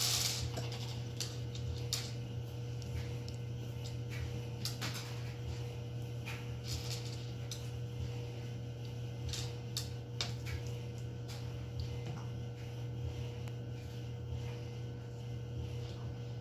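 Small hard candy-coated M&Ms being set down one at a time on a paper sheet over a wooden tabletop: light, irregular clicks and taps. A brief crinkle of a small plastic bag at the start as candies are tipped out, over a steady low hum.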